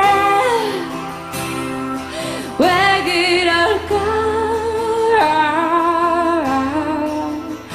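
A woman singing long held notes with vibrato over acoustic guitar, a second sung phrase entering strongly about two and a half seconds in.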